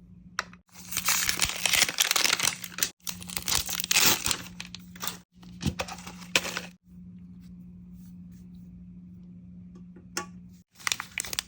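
Packaging of a Mini Brands miniature being torn open and crinkled in loud bursts for about six seconds, then a steady low hum with a single click near the end.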